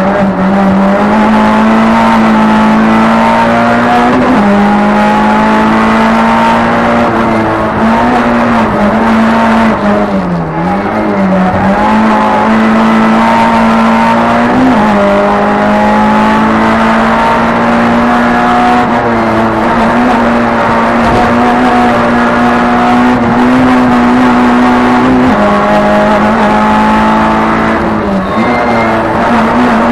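Race car engine running hard at high revs, heard from inside the stripped, roll-caged cabin. It holds a fairly steady high pitch for long stretches, and its pitch dips and climbs back briefly about ten seconds in, again around fifteen seconds, and near the end.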